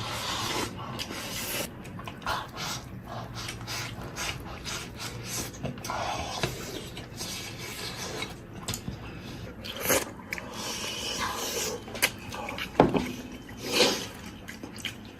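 Eating sounds: a spoon or chopsticks scraping and clicking against a bowl of braised pig's trotter rice, with chewing and gnawing, and a few sharper knocks near the end.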